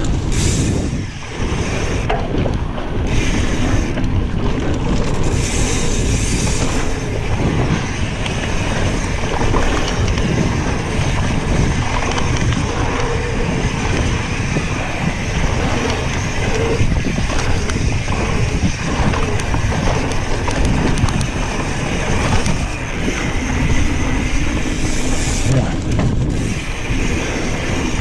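Mountain bike rolling fast down a dirt forest singletrack: steady rumble of tyres on dirt and rattle of the bike, with wind buffeting the microphone.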